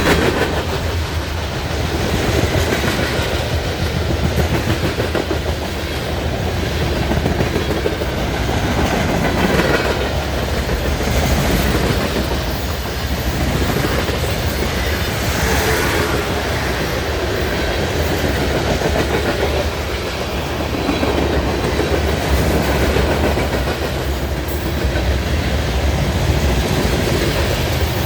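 Train cars rolling past on the track: a steady rumble and rattle of wheels on rails that swells and eases every couple of seconds.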